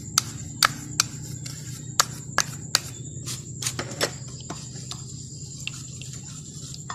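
Spoon clicking and tapping against a bowl as palm sugar is added to the marinade, with about a dozen sharp clicks in the first four seconds and fewer after, over a steady low hum.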